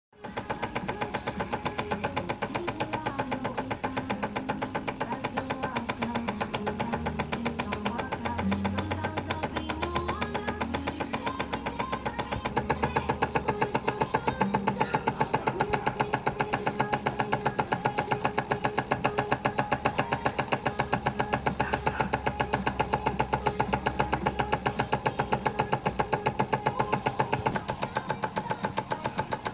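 Stuart S50 model single-cylinder horizontal mill steam engine running at speed, with a fast, even beat of its strokes and exhaust. It gets louder about halfway through.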